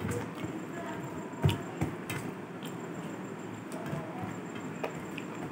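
Fingers mixing rice and chicken curry on a steel plate: scattered light taps and scrapes against the metal, the loudest about a second and a half in.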